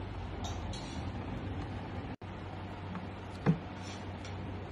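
Steady low background hum and hiss of room tone, with a brief dropout about two seconds in and one short, faint tap about three and a half seconds in.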